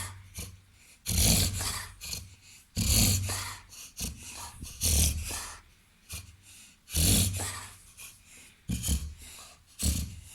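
A Labrador–golden retriever–Weimaraner cross dog reverse sneezing: a string of loud, noisy gasping inhalations, about one every two seconds, with quieter breathing between them.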